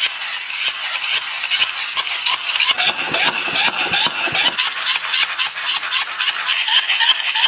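Hand-squeezed dynamo pocket light being pumped, its geared generator whirring in a quick, even rhythm of pulses with each squeeze of the lever.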